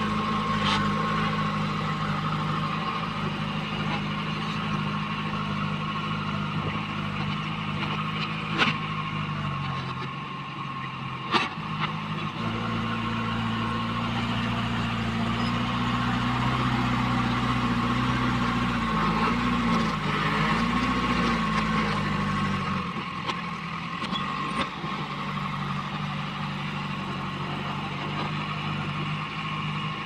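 JCB 3DX backhoe loader's diesel engine running under load as the front bucket pushes and scoops soil. The engine note rises and wavers in the second half and drops back near the end. Two sharp metallic clanks come about three seconds apart, around a third of the way in.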